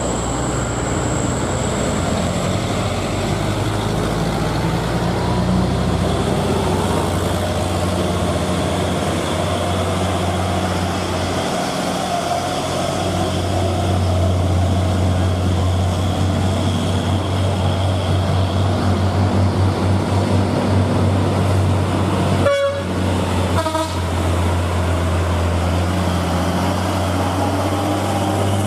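Heavy truck engine running steadily under load, with two short toots of a vehicle horn about two-thirds of the way through.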